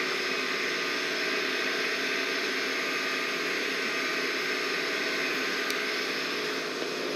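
Steady machine whir with hiss and a few steady tones, holding an even level throughout.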